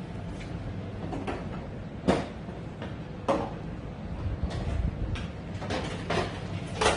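A few irregular knocks or bumps, the loudest about two seconds in and near the end, over a steady low hum.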